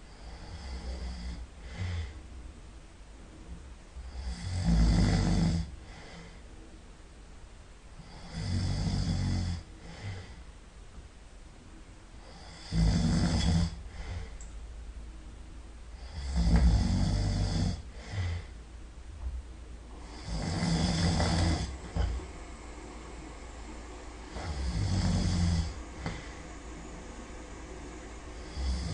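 A man snoring loudly in his sleep, one snore about every four seconds, each lasting about a second, with quieter breaths between.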